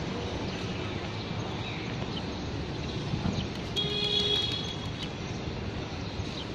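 City traffic noise, a steady hum, with a short vehicle horn toot about four seconds in.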